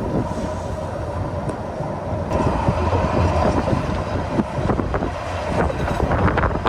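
Train running on the rails: a steady low rumble with a faint hum, growing a little louder and more clattery about two seconds in, with irregular clicks.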